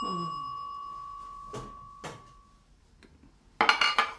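A single bell ding rings out and fades away over about two and a half seconds. Near the end comes a short clatter of a plate of cupcakes being set down on a granite countertop.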